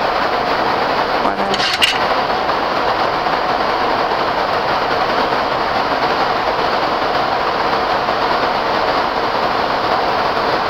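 Steady rush of airflow and engine noise in the cockpit of a Boeing 737 MAX airliner on short final approach, even and unchanging in level.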